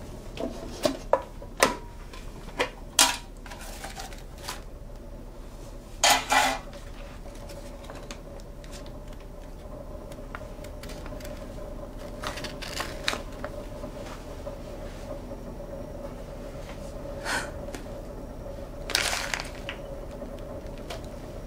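Handling sounds: a few sharp clicks and knocks, then short rustles and crinkles of a paper envelope being handled and opened. A steady hum runs underneath from about six seconds in.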